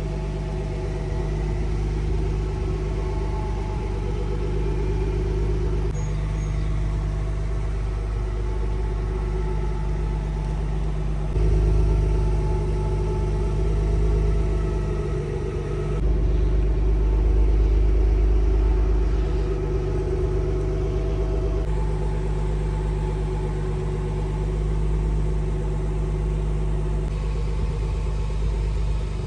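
Car engine running at a steady speed with a low rumble. The tone and loudness shift a few times, about every five seconds, as one clip gives way to the next.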